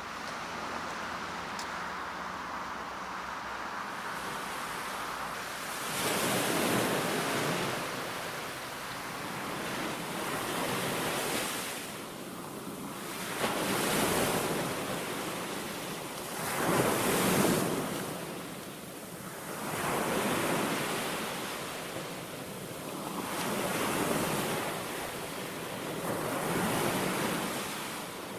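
Sea waves washing onto a beach, a steady hiss at first, then surging and falling back in a rhythm about every three to four seconds, with wind on the microphone.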